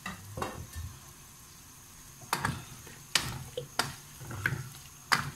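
Wooden spatula clacking and scraping against a non-stick wok as chunks of mutton and potato are stirred into fried masala: a handful of irregular knocks.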